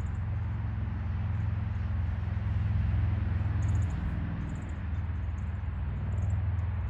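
Steady low engine rumble, as from a vehicle idling. No siren is sounding.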